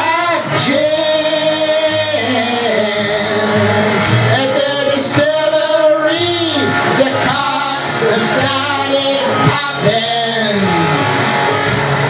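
A man singing a comic song into a handheld microphone over backing music, with notes held for about a second at a time.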